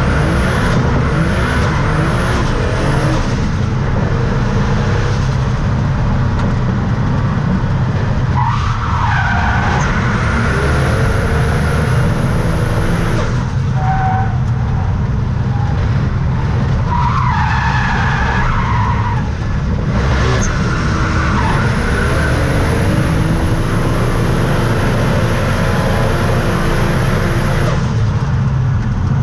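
Car engine running hard at high revs, heard from inside the cabin, with tyres squealing at times, most plainly about nine seconds in and again around eighteen seconds.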